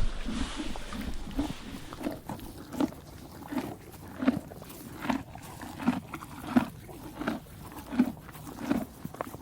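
A horse chewing hay, with steady crunching strokes about one and a half times a second. A louder rustle at the start fades within the first second and a half.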